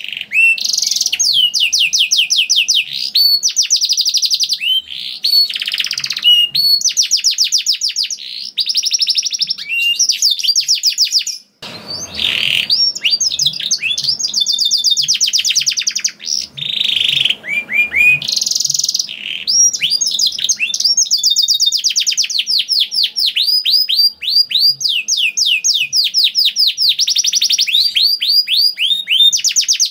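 Canary singing in long rapid trills of quickly repeated high, sweeping notes, one phrase running straight into the next, with a brief break about twelve seconds in.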